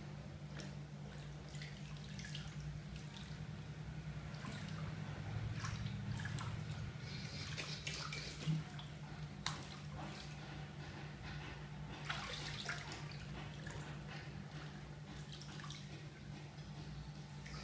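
Bathwater sloshing and dripping as a person lying in a filled tub shifts about, with scattered small splashes and a couple of sharper ones about eight and a half and nine and a half seconds in. A steady low hum runs underneath.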